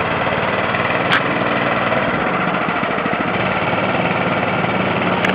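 Small go-kart engine running steadily at low speed, with one sharp click about a second in.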